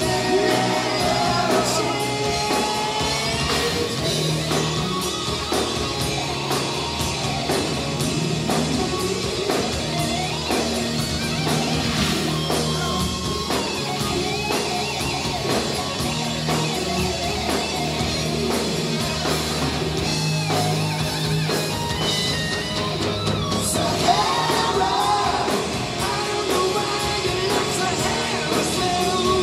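Live hard rock band playing: a male lead singer over electric guitar, bass guitar and drums, loud and continuous.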